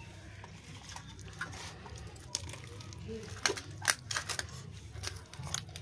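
Scattered light clicks and taps of fingers tearing kachori and scooping potato curry from a steel bowl, two of them sharper about three and a half and four seconds in, over a low steady hum.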